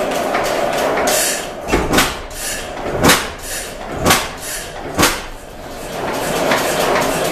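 Pattin Brothers four-cycle oilfield engine running with a fast, even clatter. In the middle the clatter thins and the engine gives a run of heavy beats about a second apart, then the steady clatter picks up again.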